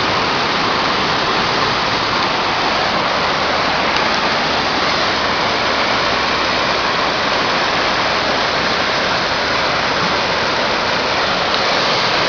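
The Big Thompson River in flood: a steady, loud rush of fast, swollen floodwater.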